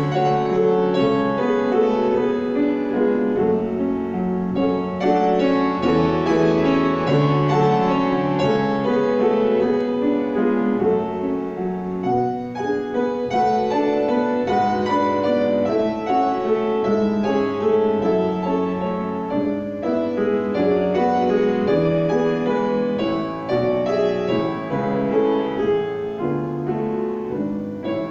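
Grand piano played solo: a continuous, flowing passage of many notes in both hands, at a steady moderate loudness.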